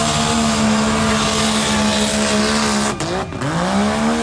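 ATV engine held at high revs under heavy throttle while driving through a mud bog hole. About three seconds in the revs drop off briefly, then climb straight back up.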